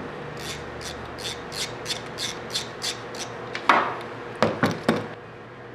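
A ratchet wrench worked in about nine short rasping strokes, roughly three a second, loosening a fastener at the engine. This is followed by several sharp metallic knocks of tools against the engine.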